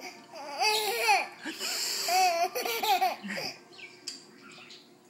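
Baby laughing in short, high-pitched squealing bursts for about three seconds, then dying away.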